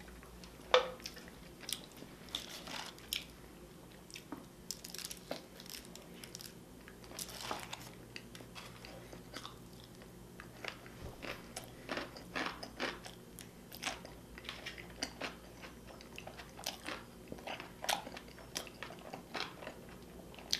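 Close-miked mouth sounds of a person biting and chewing food, with short, irregular clicks and smacks scattered throughout.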